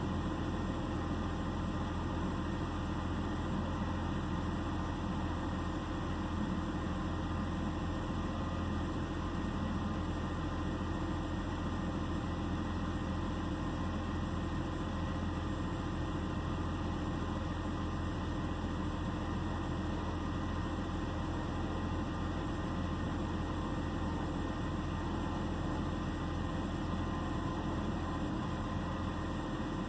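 2009 BMW 328i xDrive's 3.0-litre straight-six engine idling steadily. The owner reports a misfire and an idle problem in this engine.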